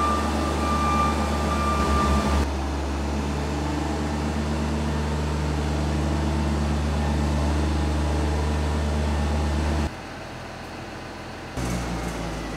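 Diesel engine of a self-propelled crop sprayer running steadily with a low drone. The drone drops suddenly about ten seconds in and picks up again near the end.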